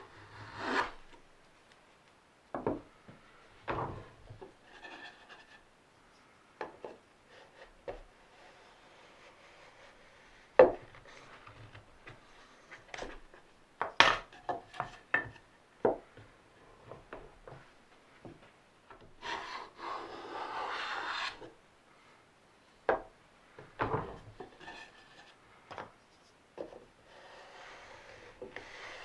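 Hand-tool woodworking on wooden parts: scattered knocks and taps of wood, with a few seconds of steady rasping or scraping about two-thirds of the way through.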